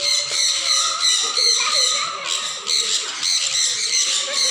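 Sun conures squawking and chattering, many shrill calls overlapping without a break.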